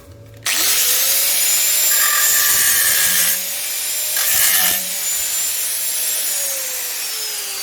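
Angle grinder with a cutting disc starting up and cutting a slit through two overlapping steel panels, a loud harsh hiss over the motor's whine. Near the end the motor note falls as it winds down.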